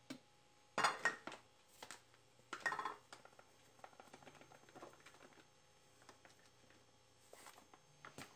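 Light clinks and knocks of kitchen utensils handled while wheat flour is measured into a blender jar: a few sharper knocks in the first three seconds, then faint scattered ticks.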